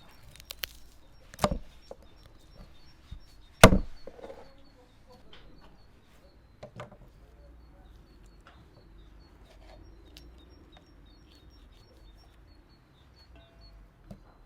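Chopping on wood: two hard chops, the second the loudest, about a second and a half and nearly four seconds in, with lighter knocks in between and after. Small birds chirp faintly throughout.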